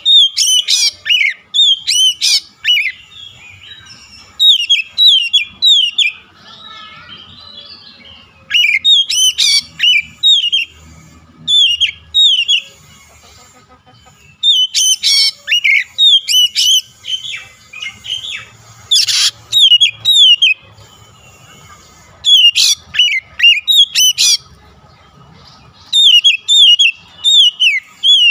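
Oriental magpie-robin (kacer) in full song: loud phrases of quick down-slurred whistles, a new burst every two to three seconds, with a few sharp harsh notes mixed in.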